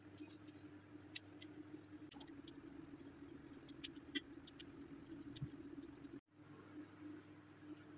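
Faint sticky clicks and pats of gloved hands pressing minced chicken mixture onto a wooden stick, over a low steady hum.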